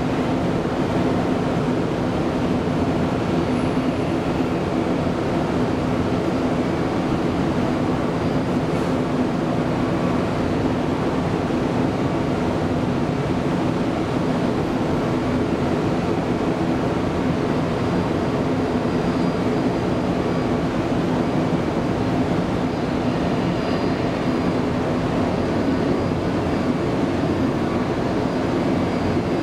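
Jet airliner engines running: a loud, steady rumble with a low hum, holding an even level with no rise or fall.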